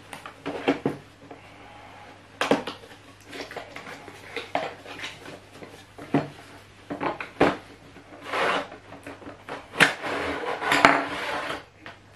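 Packaging being handled as a gimbal box is opened: cardboard and a black plastic inner tray being knocked, tapped and slid about, giving scattered sharp clicks and knocks. Two longer stretches of scraping and rustling come about eight and a half seconds in and again from about ten seconds to near the end.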